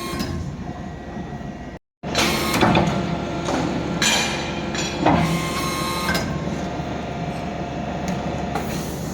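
Hydraulic scrap metal baler running, its pump humming steadily, with several loud metal clanks that ring on, about a second apart. The sound cuts out for a moment about two seconds in.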